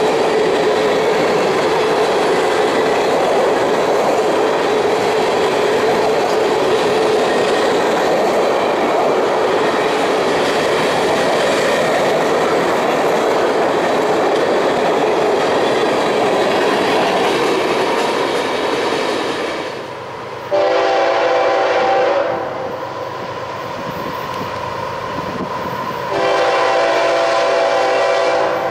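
Freight train's hopper cars rolling past with steady wheel noise and clickety-clack. After a brief drop, a diesel locomotive's multi-tone air horn sounds twice as it approaches: a blast of about a second and a half, then a longer one of just over two seconds.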